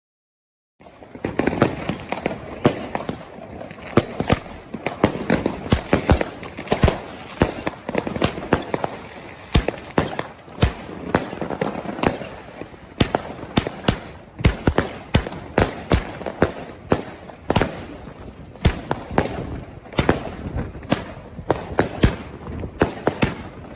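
Argento Fiori AC25-36-6, a 36-shot 25 mm firework cake, firing: a rapid string of sharp bangs, several a second, with dense crackling between them. It starts suddenly about a second in and keeps up to the end.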